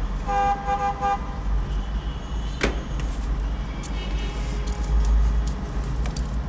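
A car horn sounds briefly, just under a second long, near the start, over a steady low rumble of traffic. There is one sharp knock in the middle and a few faint clicks.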